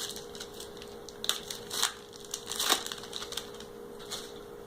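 Foil trading-card booster pack being torn open: irregular crinkles and rips of the wrapper in short clusters, over a faint steady hum.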